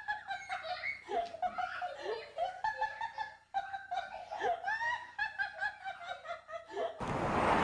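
High-pitched giggling laughter in a wavering, broken string, cut off suddenly near the end by a rush of wind noise on the microphone.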